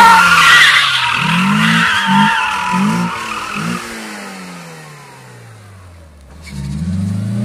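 FSO Polonez drifting: the tyres squeal for the first couple of seconds while the engine is blipped up four times in quick succession. The engine note then falls away and fades as the car pulls away. Near the end it rises again under hard revving.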